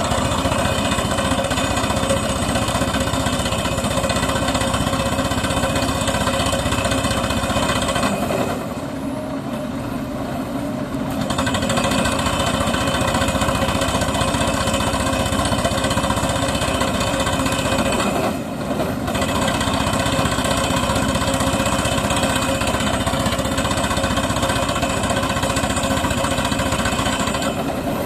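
Pile driver's hammer rapidly and continuously striking a solar-panel mounting pile, with the machine's engine running underneath. The hammering eases for a couple of seconds about a third of the way in and dips again briefly about two-thirds in.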